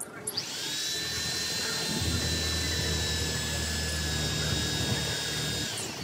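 Cordless drill running steadily for about five seconds as it works into sheet roofing. Its whine rises as it spins up, a deeper hum joins about two seconds in, and the whine drops away as it stops.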